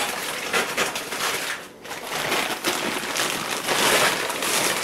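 Frozen green beans being shaken out of a plastic freezer bag into a plastic oven bag: plastic crinkling and many small clicks as the frozen beans land on the plastic, with a brief let-up a little under two seconds in.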